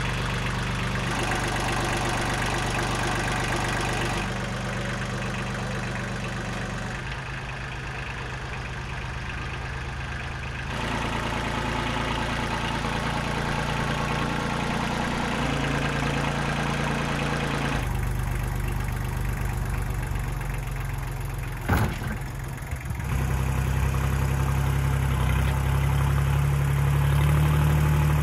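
Kubota compact tractor's diesel engine running steadily while towing a heavy load on chains, its note shifting in level and pitch at several points. One sharp knock comes about three-quarters of the way through.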